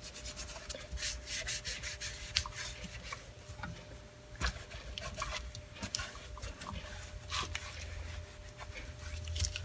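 Cloth rubbing and wiping over the body of a Craftsman battery circular saw, buffing in furniture polish, in short irregular strokes. A faint steady hum sits underneath.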